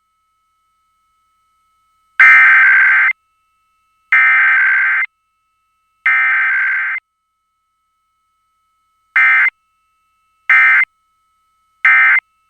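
Emergency Alert System SAME digital data bursts for a test broadcast: the encoded header sent three times, each burst about a second long, then three short end-of-message bursts. A faint steady tone sits underneath.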